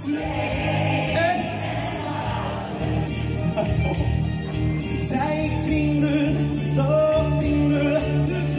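Live pop song: a male singer sings into a microphone over a backing track with a steady beat, holding long notes.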